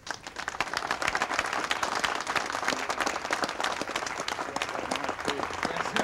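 A crowd applauding: many people clapping at once, starting suddenly and keeping up steadily, outdoors.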